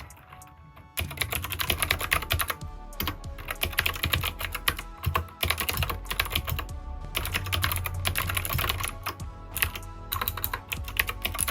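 Typing on an Anne Pro 2 Bluetooth mechanical keyboard with clicky Gateron blue switches. Rapid keystrokes start about a second in and come in bursts with short pauses, over soft background music.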